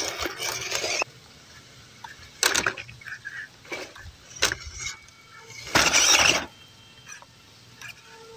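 Small-scale RC crawler's 260 brushed motor and gearbox whirring in four short bursts of throttle as it creeps over a tree root, the first cut off abruptly about a second in.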